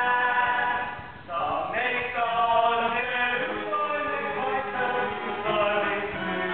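Male voices singing together in a musical-theatre number over instrumental backing, with a brief break about a second in before the voices come back on a rising note.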